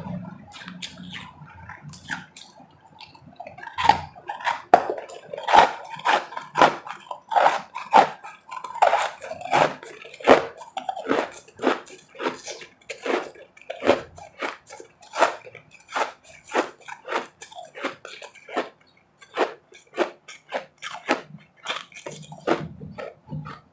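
Close-miked crunching and chewing of refrozen powdery snow ice, quiet at first, then from about four seconds in a steady run of sharp crunches, two or three a second.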